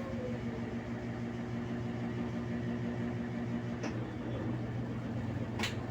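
Brastemp BWK12 12 kg washing machine running with a steady mechanical hum, a falling whine in the first second and two short clicks about four and five and a half seconds in. This is the unexplained noise its owner is complaining about; she finds that it spins normally.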